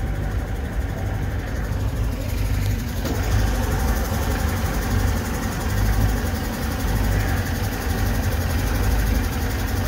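Boat's outboard motor running steadily at low cruising speed, a low drone that gets a little louder about three seconds in.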